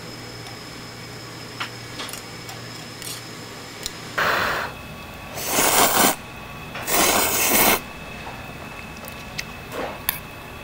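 Ramyeon noodles from a tteokbokki pan being slurped: three loud slurps about four, five and a half, and seven seconds in. A few light clinks of metal chopsticks against a small steel bowl come before and after. The noodles are hot.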